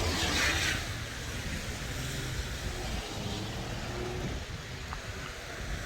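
Street traffic on a snowy city street, a steady low rumble under a noisy hiss, with a brighter hiss in the first second as a vehicle passes.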